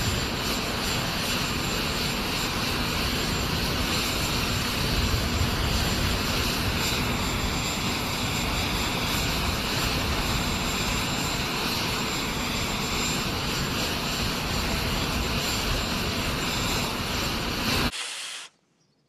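Steady jet aircraft engine noise with a thin high whine, cutting off abruptly near the end.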